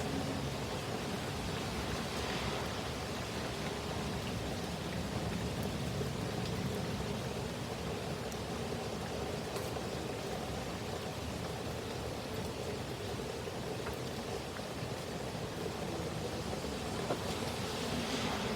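Heavy rain pouring steadily: an even hiss with a few faint sharp drop ticks.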